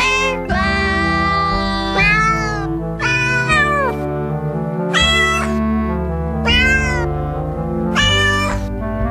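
A novelty song whose melody is played with sampled cat meows, about one meow a second, many of them bending down in pitch at the end. Steady backing chords and bass run underneath.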